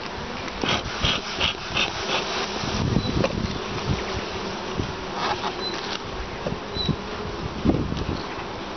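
Honeybee colony humming steadily in an open long hive during an inspection, with a few light knocks.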